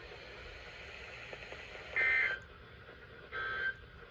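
Emergency Alert System end-of-message signal: two short bursts of SAME digital data tones, the first about two seconds in and the second about a second and a half later, marking the end of the alert.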